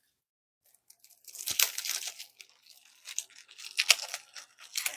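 Plastic wrapping crinkling and tearing as a trading card box or pack is opened by hand, in uneven bursts starting about a second in.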